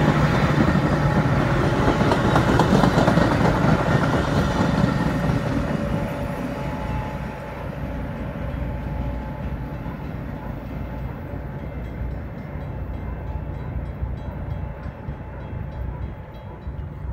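Metra Rock Island commuter train's bilevel passenger cars rolling past on the rails, a loud rumble for the first few seconds, then fading steadily as the train pulls away down the line.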